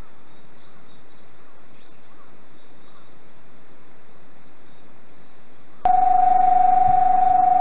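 Steady outdoor background hiss with a few faint bird-like chirps. About six seconds in, a loud, steady electronic warning tone starts abruptly and holds one pitch with a slight flutter.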